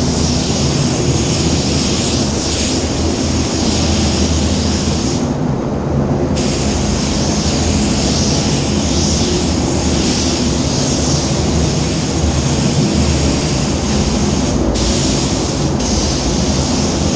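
Hiss of adhesion promoter being sprayed in a light, even dusting coat onto a bumper, cutting out for about a second some five seconds in and briefly twice near the end as the spraying pauses. A steady low rumble runs underneath.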